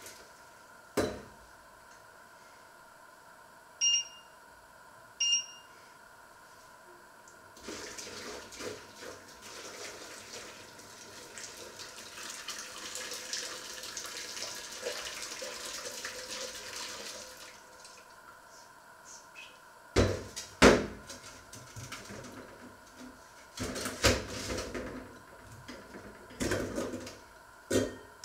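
Kitchen tap running into a stainless steel sink for about ten seconds while dishes are rinsed, followed by knocks and clatter of crockery against the sink. Two short high beeps sound a few seconds before the water starts.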